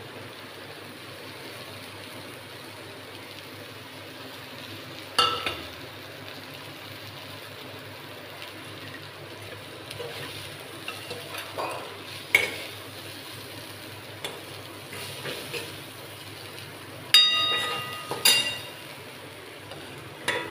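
Sprouted moong cooking in a steel kadai: a steady sizzle, with a steel spoon stirring and scraping the pan now and then, and two ringing metal clanks of spoon on pan near the end.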